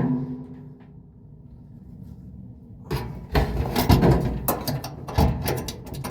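Clicks and knocks of metal parts and tools being handled while a new idler pulley and tensioner spring are fitted inside a Samsung dryer. They start about three seconds in, after a quiet moment, and come at uneven intervals.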